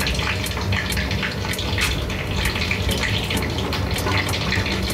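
Frozen spring rolls shallow-frying in a pan of oil: a steady sizzle with frequent sharp crackles and pops.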